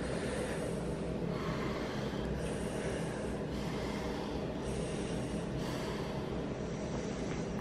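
A woman in labour breathing deeply in and out through a gas-and-air (nitrous oxide) mouthpiece, each breath a hiss through the valve and tubing, about one a second, over a steady low hum.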